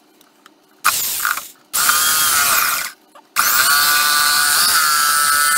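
Reciprocating saw (Sawzall) cutting into the wooden hive box in three bursts: a short one about a second in, another just after, and a longer run from about halfway through, with near silence between them. Each burst carries the saw motor's high whine.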